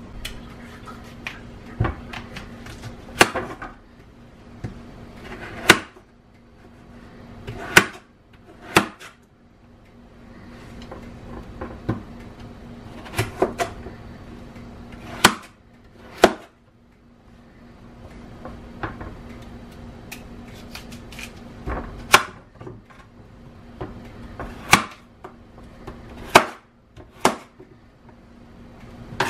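Kitchen knife cutting chayote on a cutting board: sharp, irregularly spaced knocks as the blade hits the board, over a low steady hum.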